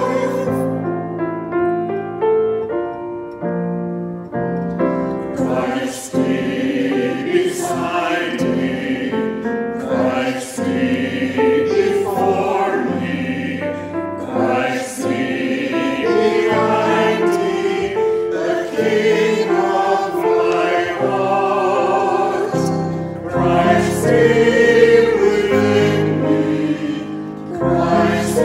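A choir singing a hymn with instrumental accompaniment; the first few seconds are held instrumental chords, and the voices come in about five seconds in.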